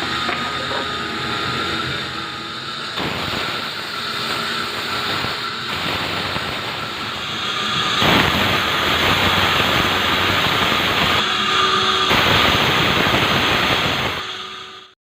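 Sawmill saw cutting a hard, heavy acacia log: a loud, steady grinding with a high tone ringing over it. The grinding gets louder about eight seconds in and drops away sharply just before the end. The uploader says the blade sounds cracked.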